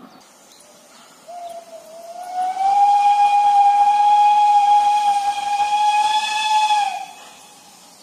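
Steam locomotive whistle, one long blast of about five seconds from the approaching 313.902. It starts a little low, rises to a steady pitch, and cuts off sharply.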